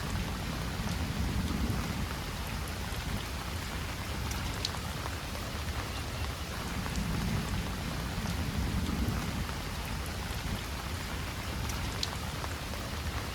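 Heavy rain falling steadily, with a few sharp ticks of single drops close by. A deep low rumble swells twice, about a second in and again around seven seconds in.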